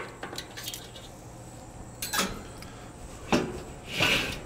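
A few scattered metallic clanks and a short scrape near the end: the kettle grill's cooking grate being turned and handled.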